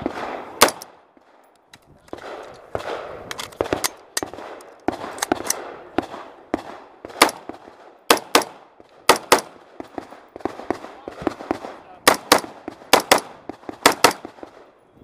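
Semi-automatic AR-style rifle firing a fast string of shots, mostly in quick pairs, with short pauses between the pairs.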